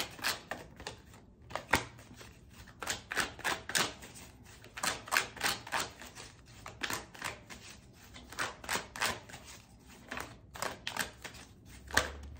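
A deck of tarot cards being shuffled by hand: a quick, uneven series of sharp clicks and slaps, a few a second.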